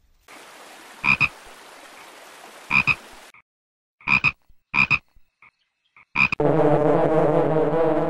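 A frog giving about six short, clipped croaks at irregular intervals. Near the end a honeybee colony's loud, steady buzz sets in.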